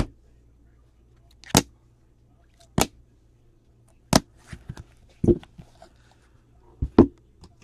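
Hard plastic card holders clacking as they are handled and set down one after another: six sharp clacks about a second apart, with light handling rustle between them.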